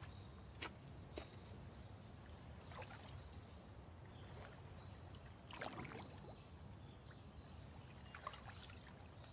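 Faint trickling and small splashes of water from someone standing in a river, over a low steady hum.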